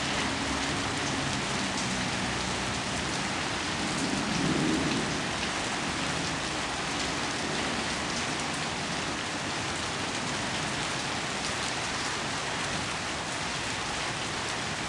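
Heavy rain falling steadily on trees, leaves and the ground, a dense even hiss flecked with the patter of individual drops.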